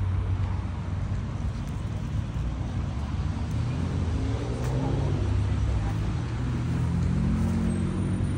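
Road traffic: a motor vehicle's engine running close by over a steady low rumble, its pitch shifting about halfway through and then holding steady toward the end.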